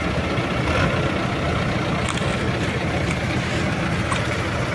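Tractor diesel engine idling steadily, with a few faint ticks over it.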